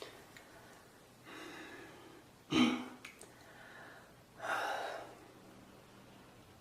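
A person in a coughing fit: a drawn breath, one sharp cough about two and a half seconds in, then another gasping breath about four and a half seconds in.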